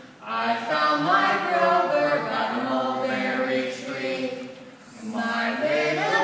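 Voices singing without accompaniment in a chant-like phrase, with a short break about four and a half seconds in before the next phrase starts.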